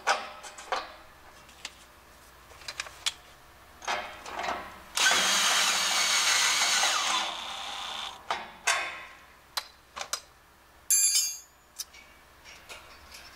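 Cordless drill with a socket driving in the bolt that holds the metal regulator cover, running steadily for about two seconds and then more quietly for a moment before stopping. Clicks and knocks of the cover and tool being handled come before it, and a short clatter follows near the end.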